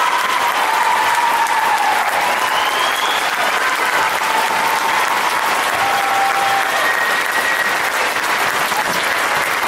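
Large audience applauding steadily, with a few voices cheering over the clapping.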